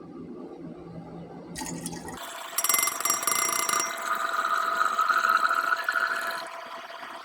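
Hot liquid hissing loudly with several steady whistling tones, setting in about two seconds in and fading out near the end, while a low hum stops.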